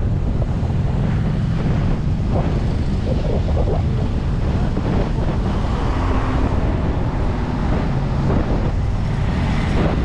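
Wind buffeting the microphone over the steady low road and engine noise of a car driving.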